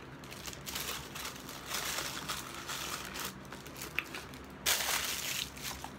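Paper food wrapper crinkling and being crumpled in the hands, in irregular rustles with a louder crumple about two-thirds of the way through.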